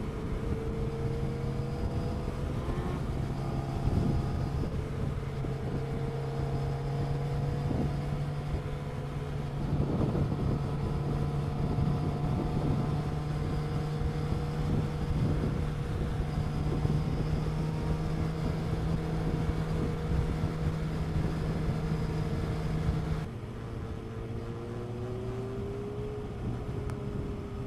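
Motorcycle engine running steadily at cruising speed, heard from on board the bike along with road and wind noise. About 23 seconds in, the engine note suddenly drops to a quieter level, and near the end its pitch climbs slightly.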